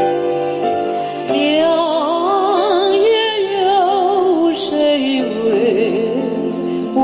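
Background music: a slow song, a singer holding long notes with wide vibrato over sustained accompaniment, a new phrase coming in about a second in.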